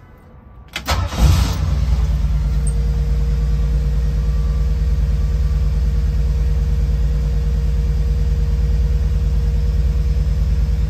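1973 Ford Bronco's small-block Ford V8 started on the key: a brief crank, then it catches with a quick rev about a second in. It settles into a steady, even idle.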